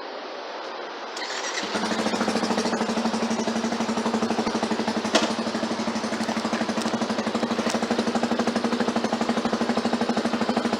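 An engine starts about a second and a half in and settles into a steady, rapidly pulsing idle. There is one sharp click about five seconds in.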